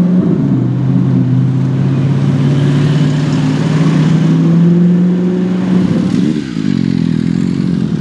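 Loud Audi R8 engine with an aftermarket exhaust, held at steady raised revs, then a quick throttle blip about six seconds in before it settles back.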